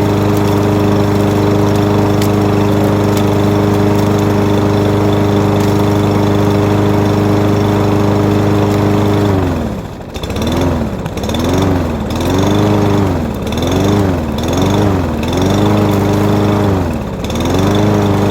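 Briggs & Stratton single-cylinder mower engine on a Black Max 22-inch self-propelled push mower running steadily. About ten seconds in, its speed starts dipping and recovering about once a second, surging, before it settles back to a steady run near the end.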